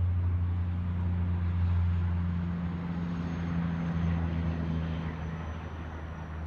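Steady low hum of an idling engine, a constant drone with a broad noisy wash over it.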